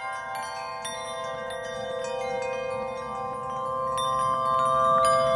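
Background music of ringing, chime-like bell notes over a held chord, growing slightly louder.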